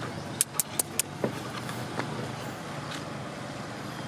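Steady low hum of a vehicle engine running, with four quick, sharp, high-pitched clicks about half a second in.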